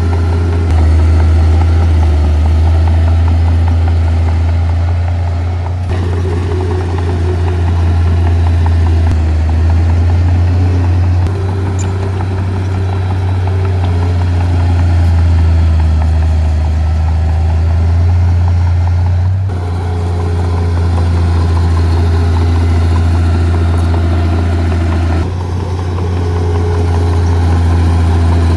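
Heavy diesel engine of earth-moving machinery running steadily with a deep hum. The sound changes abruptly three times, about a fifth of the way in, two thirds of the way in and near the end.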